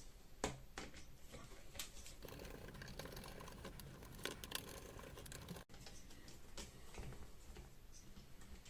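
Faint, scattered small clicks and light scraping of a screwdriver turning out T10 Torx security screws from a battery pack casing.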